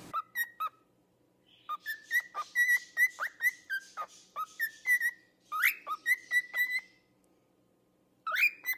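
A small pet parrot singing: a run of short whistled notes and chirps with sharp clicks, pausing for about a second before a few more notes near the end.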